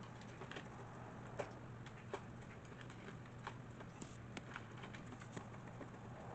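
Faint, irregular light taps and clicks of drawing at a table, crayons or pencils knocking on paper and tabletop, over a steady low hum.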